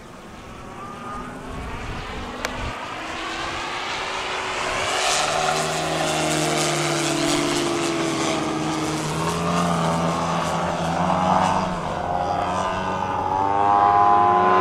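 Two radio-controlled model airplanes flying overhead, their engines and propellers droning and growing steadily louder as they come closer, with the pitch sliding up and down as they pass and manoeuvre.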